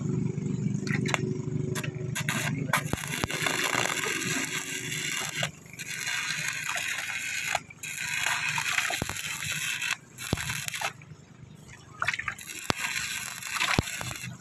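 Stick-welding arc crackling and sizzling as steel is welded, in runs of a few seconds with brief breaks where the arc is stopped. It mostly dies out about three-quarters of the way through, leaving scattered crackles.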